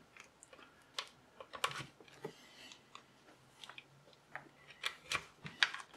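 Scattered light clicks and taps of a handheld digital multimeter and its test leads being handled and set up on a bench, with the probe leads plugged into the meter.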